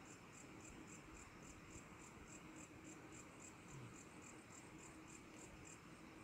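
Faint, steady chirping of a cricket at night: a high-pitched pulse repeating evenly about four times a second.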